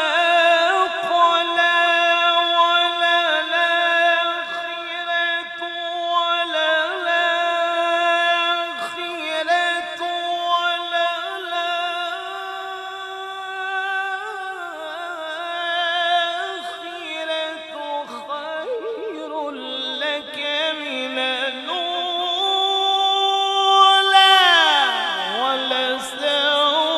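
A male qari reciting the Quran in the melodic tilawat style, solo and unaccompanied, drawing the words out into long, held, wavering notes. Near the end his voice slides sharply down in pitch before settling on a lower note.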